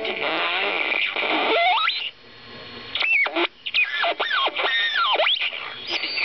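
Vintage AM radio being tuned across the band by its dial. Whistles glide up and down between stations, mixed with static and brief garbled snatches of station audio, with a quieter gap about two seconds in.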